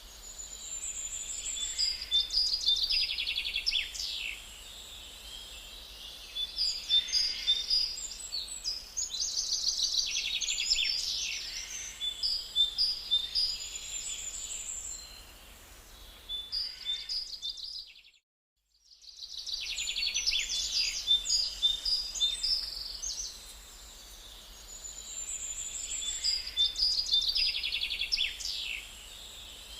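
Songbirds singing in a forest, with phrases of quick trills and chirps every few seconds. The sound cuts out completely for about a second, two-thirds of the way through.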